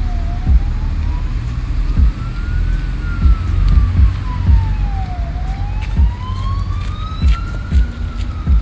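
A siren wailing, its pitch slowly rising and falling, about five seconds to each up-and-down cycle, over a loud low rumble with irregular thumps.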